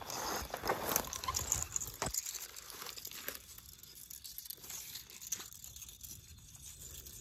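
Dry dead weeds and brush crackling and rustling underfoot and against the body as someone pushes through them, busiest in the first couple of seconds and then thinning to scattered crackles.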